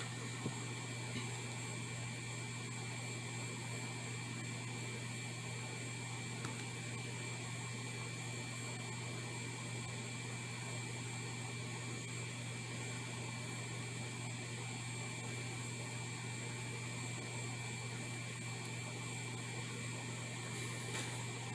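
Steady low electrical hum with a faint constant high whine, unchanging throughout: the background drone of running bench equipment.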